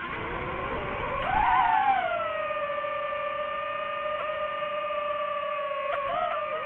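DJI FPV drone's motors and propellers whining, the pitch rising with a burst of throttle about a second and a half in, then falling back to a steady tone.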